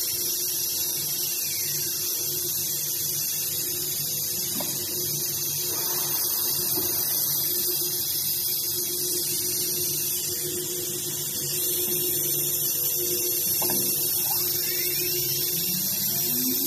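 A CNC machine running, either a router or a laser cutter: a steady hum with a dense high hiss, and a short rising whine near the end.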